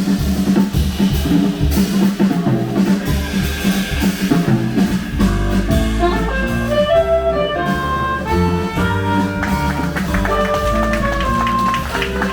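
Jazz band playing: a drum kit and bass, with a horn melody of held notes coming in a few seconds in.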